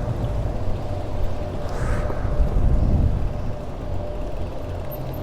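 Motor traffic on a city street: a vehicle engine running with a steady low rumble that swells for about a second, two to three seconds in, as traffic passes.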